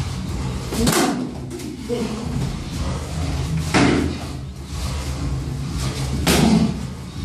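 Three dull thuds of gloved punches and kicks landing on gloves, shin guards and body in kickboxing sparring, a couple of seconds apart, over a steady low hum.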